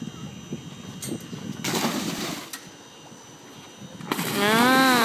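Open-air rush of wind and water noise, with a burst of louder rushing about two seconds in. Near the end, a person's drawn-out call, rising and then falling in pitch for about a second, as the wakeboarder lands on the water.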